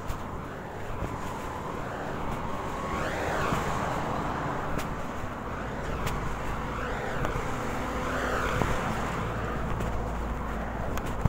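Road traffic: a steady hum of cars, with vehicles swelling past about three seconds in and again twice later on.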